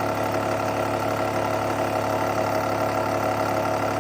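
Milling machine running steadily as its cutter takes a cut about a millimetre deep, bringing a metal part down to final size.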